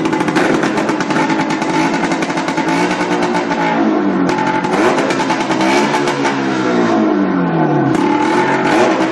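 A 440 two-stroke snowmobile engine fitted in a golf cart, running loud. From about three seconds in it is revved up and down several times, its pitch rising and falling.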